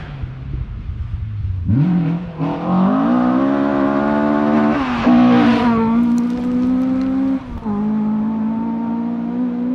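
Ford Escort RS1800 Mk2 rally car at full throttle on gravel, its engine rising through the gears as it approaches and loudest as it passes close by about five seconds in. A brief dip, a gear change or lift, comes about two seconds later, then the engine holds a steady note as it goes away.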